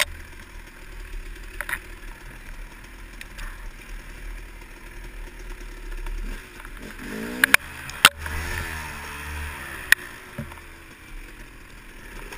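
Dirt bike engine running as the bike rides a rough trail, heard as a low rumble, its pitch rising and falling with the throttle a little past the middle. A few sharp knocks cut in as the bike and camera jolt over bumps.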